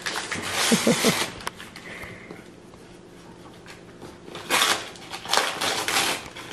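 Gift-wrapping paper crinkling and a small cardboard box being handled as a present is unwrapped, in short rustling bursts: one in the first second with a brief chuckle, then a quieter stretch, then more rustling about four and a half seconds in.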